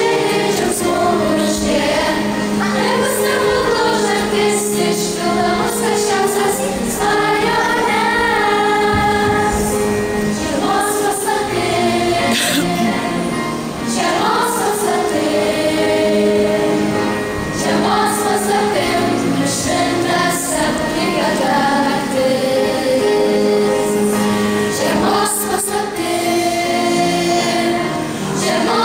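A children's choir of young girls singing a Christmas song in unison, over sustained electronic keyboard accompaniment.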